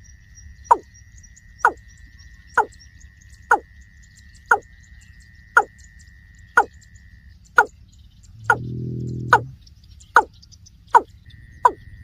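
Watercock calling: a short falling note repeated about once a second, getting a little quicker near the end, with one longer, deep low call about two-thirds of the way through.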